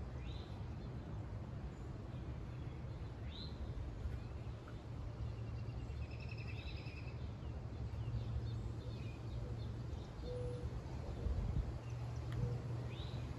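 Outdoor ambience: songbirds calling, with a few short rising chirps and a rapid trill about halfway through, over a steady low background rumble.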